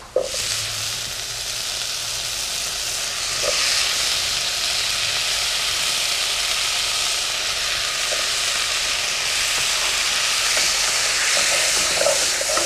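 Diced potatoes going into hot butter with onions in a pot and sizzling steadily as they fry. The sizzle starts suddenly as they go in, and a few light knocks of a wooden spoon stirring come near the end.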